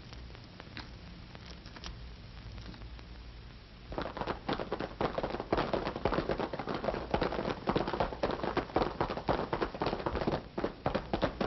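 Hoofbeats of several horses galloping away, a rapid, dense clatter made as a radio sound effect, starting about four seconds in after a stretch of low hum.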